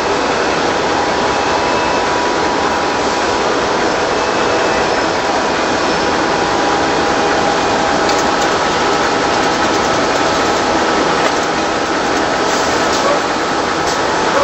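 Facial tissue production line machinery running: a steady mechanical din with several steady whining tones and a few faint clicks in the second half.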